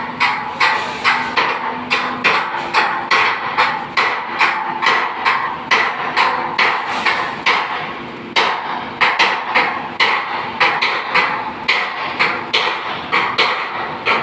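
A hammer striking metal again and again in an even rhythm, about two to three blows a second, with a short break a little past the middle.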